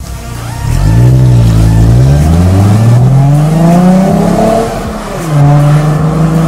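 Volkswagen Jetta GLX VR6 engine accelerating away from a standstill. The pitch climbs steadily for about four seconds, drops briefly at a gear change about five seconds in, then holds steady.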